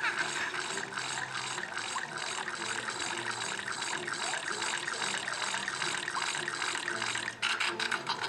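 Running, splashing water: a steady crackling hiss, with a few sharper clicks near the end.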